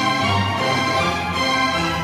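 Orchestral background music with long held notes.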